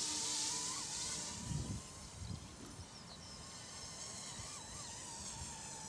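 Eachine E200 Pro Seahawk RC helicopter in flight: a high whine from its electric motor and rotors, wavering in pitch and fading over the first couple of seconds as it moves away. A few low rumbles of wind on the microphone.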